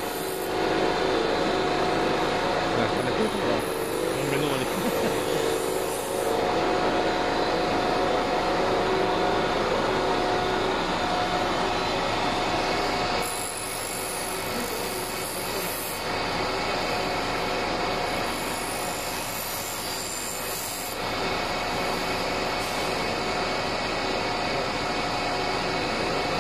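Oxy-acetylene gas welding torch hissing steadily as a patch is welded onto a truck's steel fuel tank, with steady humming tones underneath. It is louder in the first half and drops a little about halfway through.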